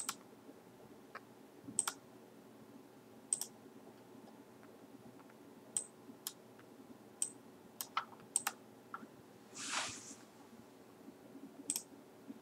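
Faint computer mouse clicks, about ten sharp single clicks spaced irregularly. There is one brief soft hiss about three-quarters of the way through.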